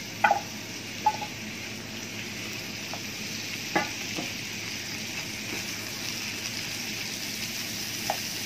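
Cubed boneless chicken breast frying in hot oil in a frying pan: a steady sizzle, with a few short sharp clinks, the loudest just after the start and two more around four seconds in.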